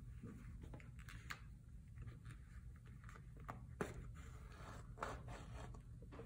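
Faint scraping and rustling of leather pieces being handled as thread is pulled through hand-punched stitching holes while the bag is hand-sewn, with a few light clicks.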